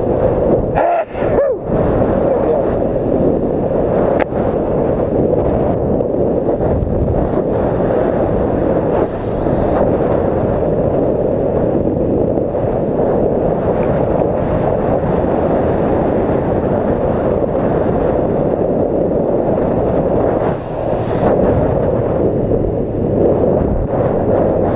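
Steady, loud wind rush buffeting the microphone of a motorcycle ridden at speed, with road and engine noise buried beneath it.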